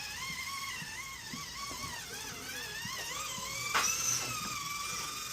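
Electric motor and gearbox of an RC rock crawler whining, the pitch wavering up and down with the throttle. A sharp knock comes a little under four seconds in, after which the whine holds a higher pitch.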